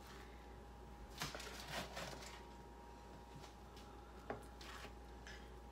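Faint handling sounds of a plastic spatula setting cheese-topped burger patties onto buns on a plate: a few soft taps and scrapes over a faint steady hum.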